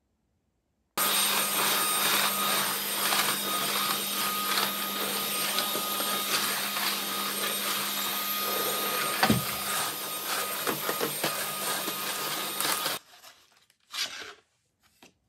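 A motor-driven appliance running steadily with a constant hum and whine for about twelve seconds. It starts suddenly about a second in and cuts off suddenly near the end.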